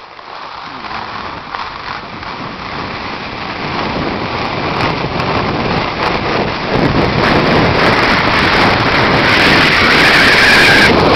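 Wind rushing over a handheld camera's microphone on a moving ski slope, a steady noisy rush that builds louder throughout.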